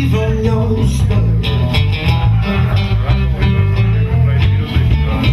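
A live blues band playing a slow minor blues between vocal lines: guitar over a bass line.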